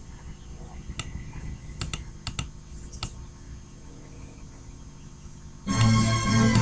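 A few scattered computer keyboard keystrokes clicking over a low steady hum. Music starts suddenly near the end.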